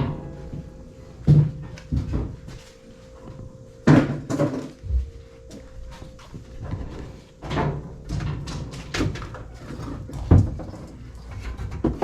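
Intermittent clunks and knocks, about half a dozen spread irregularly, over faint background music.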